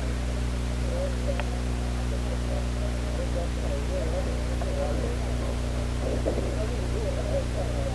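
A steady low electrical-sounding hum with a faint hiss over it, and a faint wavering murmur in the background. A single faint click about one and a half seconds in.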